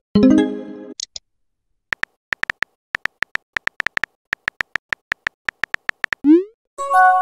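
Texting-app sound effects: a synthesized message chime fading out at the start, then a run of quick phone-keyboard typing clicks, several a second. Near the end come a rising swoop and another chime as a message is sent.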